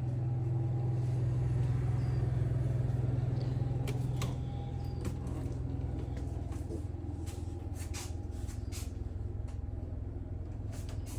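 Steady low mechanical hum with a strong low tone, dropping in level about four seconds in, with a few light clicks and knocks in the second half.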